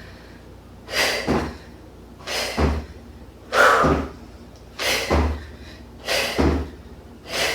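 A woman doing jump squats: a hard, breathy exhale with each rep and a dull thud as she lands on the floor, repeating about every 1.3 seconds.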